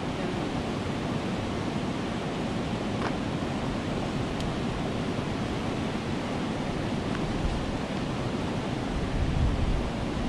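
Water rushing over a river weir: a steady, even roar of white water. A gust of wind buffets the microphone near the end.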